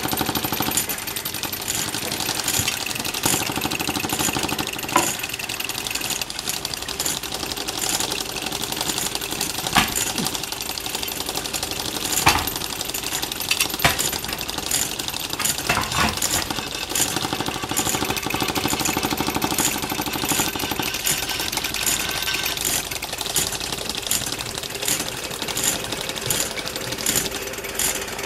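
Small model heat engines running, a rapid mechanical clatter and ticking with a few louder clicks.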